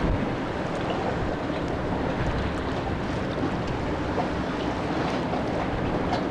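Steady outdoor rumble of wind buffeting the microphone beside open water, with the distant noise of a jet airliner on final approach beneath it.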